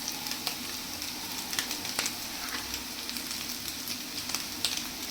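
Noodles and vegetables sizzling in a hot pan, with a spatula scraping and clicking against the pan every so often as they are stirred.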